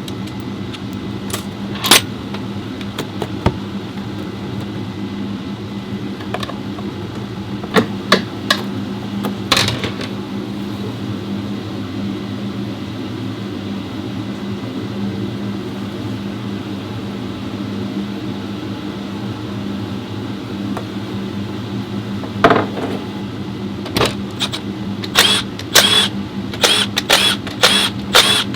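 Car engine idling with a steady hum, with sharp clicks now and then that come in a quick series near the end.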